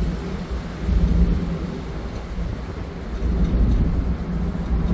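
Harbour ferry underway: the engines drone low and steady under a rush of wind and water noise, with the low rumble swelling about a second in and again near the end.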